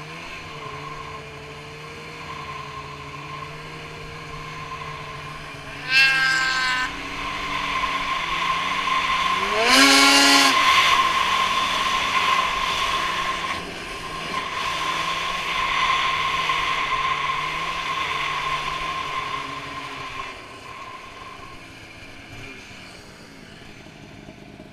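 Two-stroke Polaris Switchback Assault snowmobile fitted with a Bikeman Velocity trail can exhaust, running steadily at low revs, then revving up sharply about six seconds in and again, harder, about ten seconds in. It holds at high revs under way for several seconds before easing off near the end.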